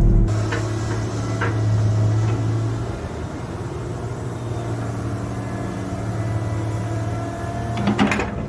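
Cat 315 excavator's diesel engine running steadily under work, easing off about three seconds in. A few short knocks early on and a quick cluster of clanks near the end, the loudest moment.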